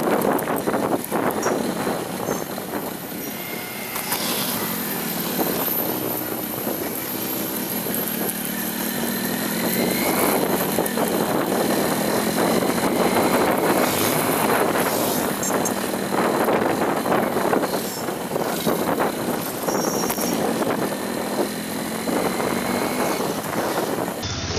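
A vehicle driving over a rough, unpaved road: engine running, its pitch rising and falling with speed, over a steady rumble of road and tyre noise. The sound changes abruptly near the end.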